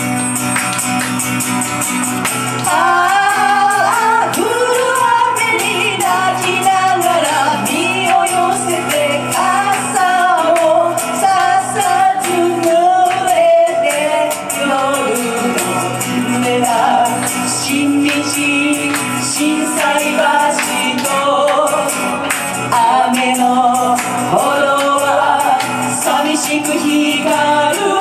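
A woman singing a Japanese pop song into a microphone, accompanied by a strummed acoustic-electric guitar; the voice comes in about two and a half seconds in over the guitar.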